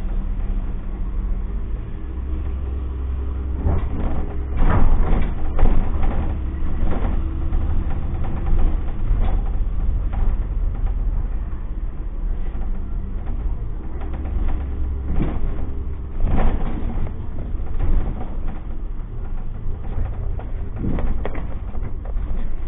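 City bus on the move: a steady low engine and road rumble, with occasional knocks and rattles, clustered a few seconds in, again past the middle, and near the end.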